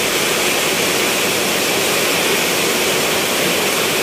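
Heavy rainstorm with strong wind: a loud, steady rush of rain and wind.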